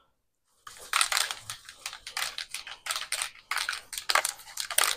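Undercoating being sprayed in quick, short hissing bursts, several a second, starting about half a second in.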